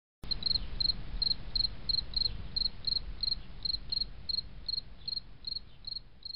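A cricket chirping in a steady, even rhythm of about three short high chirps a second over low background noise, starting abruptly a moment in.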